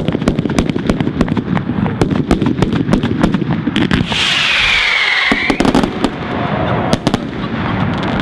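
Fireworks going off: a dense run of bangs and crackling pops. About four seconds in comes a hiss with a whistle that falls in pitch over a second or so.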